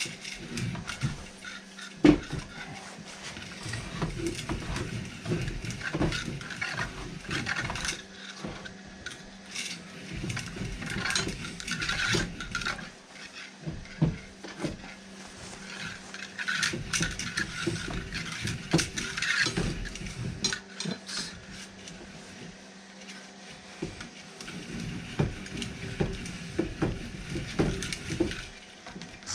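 Irregular clicks, knocks and rattles of plastic filament and a spool being handled as spliced 3D printer filament is wound on by hand, over a steady low hum.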